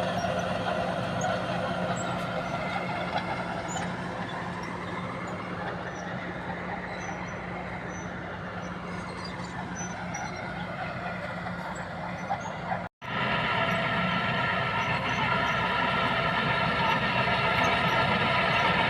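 Heavy engine of an old bulldozer running steadily. The sound drops out for an instant about thirteen seconds in, then carries on slightly louder.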